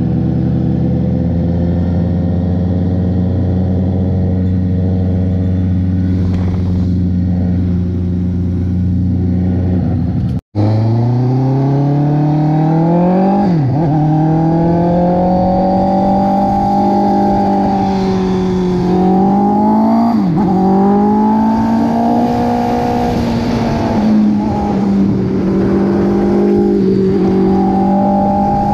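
Honda CB650R's inline-four engine heard from the rider's seat, first holding a steady drone while cruising. After a brief cut in the sound it accelerates, the pitch rising and falling back sharply at two upshifts, then settles to a steady cruise.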